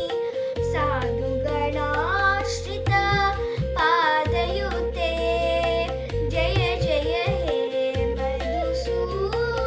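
Devotional song in Carnatic style: a voice sings a gliding, ornamented melody over a steady drone and low instrumental accompaniment.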